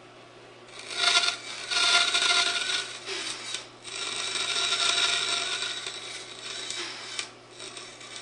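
Bandsaw running with a steady motor hum while its blade cuts a notch into a wooden workpiece. The cutting starts about a second in and comes in several pushes, the longest about four seconds, easing off near the end.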